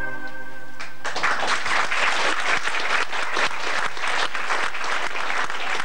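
An audience applauding, a dense clatter of many hands clapping that starts about a second in as a held musical chord dies away.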